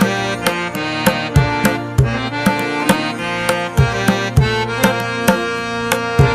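Instrumental background music: drum strokes about twice a second under a sustained melody.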